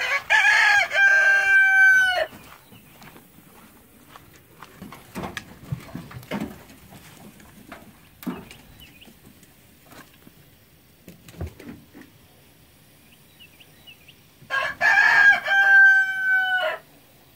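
Rooster crowing twice, about twelve seconds apart. Each crow lasts about two seconds and ends in a long held note.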